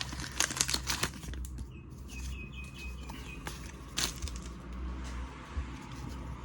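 Foil Pokémon booster pack being crinkled and torn open and the cards handled: a dense flurry of crackles in the first second, then sparser ticks and rustling.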